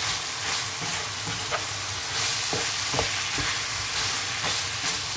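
Diced chicken, mushrooms and peppers sizzling in a frying pan as they are stirred with a spoon, the spoon knocking against the pan now and then.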